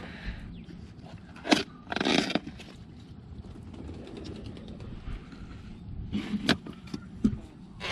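Handling noises: a sharp click, then a short scraping rustle about two seconds in, and a few more clicks and knocks near the end, over a low steady background.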